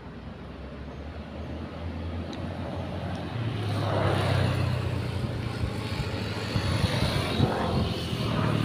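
A motor vehicle's engine on the nearby road, a low steady hum that grows louder over the first four seconds and stays loud.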